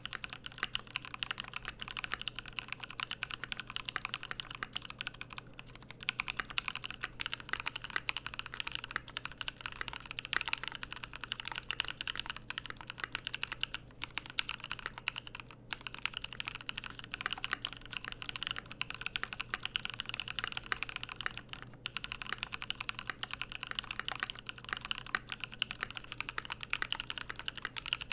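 Fast, continuous typing on a mechanical keyboard with lubed NovelKeys Cream linear switches, PBT keycaps and an aluminium plate. The keystrokes are dense, with a few brief pauses along the way.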